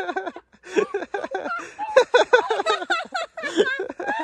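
High-pitched voices talking; the words are not made out.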